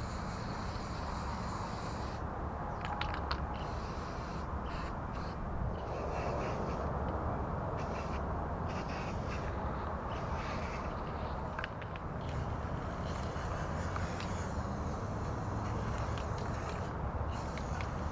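Black truck bed coating being sprayed onto a metal go-kart frame: a hiss that starts and stops over and over as the sprayer is triggered in short passes, with a few clicks, over a steady low rumble.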